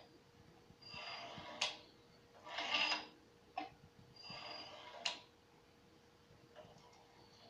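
Electronic throttle body's small DC motor and gear train buzzing in three short bursts as bench voltage drives the butterfly plate. Each burst is followed by a sharp click.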